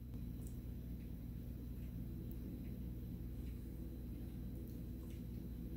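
A steady low hum, with a few faint soft ticks over it.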